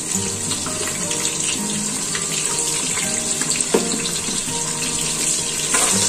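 Sliced onions sizzling in hot oil, a steady hiss, with two sharp knocks, one a little before four seconds in and one near the end.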